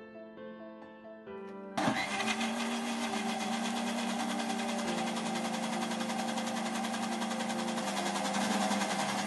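Soft piano background music, then about two seconds in a Vidiem mixer grinder switches on. Its motor runs loud and steady, blending bread pieces with milk into a smooth paste.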